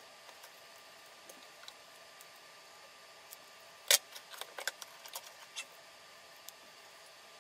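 Small hard clicks and taps of a mobile phone's parts being handled and fitted together during reassembly: one sharp, loud click about four seconds in, then a run of lighter clicks over the next two seconds, over a faint steady hum.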